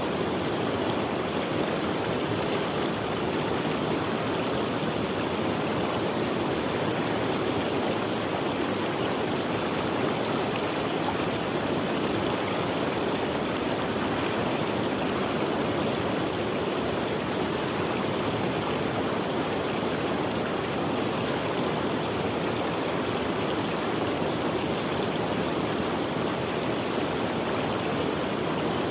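Running water of a stream, a steady, even rushing.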